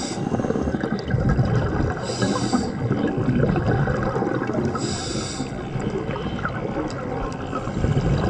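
A scuba diver's regulator breathing underwater: a short hiss of inhaling through the regulator about 2 seconds in and again about 5 seconds in, with bubbly gurgling of exhaled air between the breaths.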